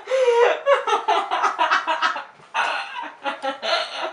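People laughing hard in repeated bursts.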